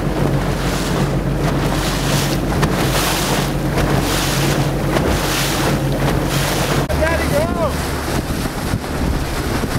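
Wind buffeting the microphone over choppy water, under a steady low motor drone that drops in pitch about seven seconds in. Just after, two short rising-and-falling calls.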